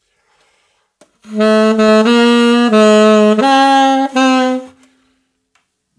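Alto saxophone playing a short phrase of about five notes, each one tongued separately with short breaks between them, rising slightly in pitch. It is an exaggerated demonstration of the choppy playing that comes from leaning on tonguing too early in learning.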